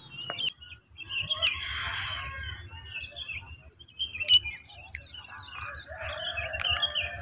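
Birds chirping and calling in many short, overlapping notes over a low, steady rumble.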